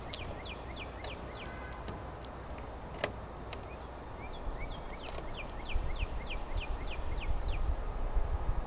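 A songbird singing a series of short notes that each slide down in pitch, a few a second, in two runs with a pause between. Under it runs a steady low rumble, and a single sharp click sounds about three seconds in.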